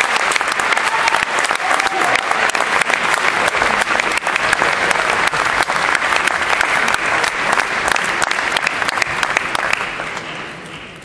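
Concert hall audience applauding, dense steady clapping that starts to fade away near the end.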